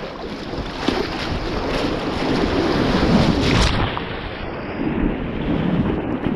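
Whitewater rapids rushing and splashing against and over the bow of a kayak as it runs through the waves, close to the microphone.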